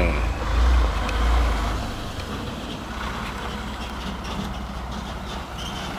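Flatbed delivery truck's engine running, a low rumble that is loudest for the first two seconds and then settles to a quieter, steady drone.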